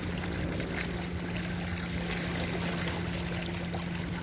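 Small waves lapping and splashing against a rocky shore, over a steady low hum.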